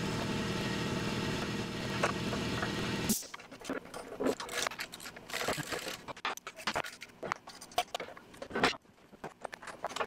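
A steady mechanical hum cuts off abruptly about three seconds in. After it come scattered clicks, clunks and scrapes of hand work fitting a plastic slip plate onto a semi truck's steel fifth wheel.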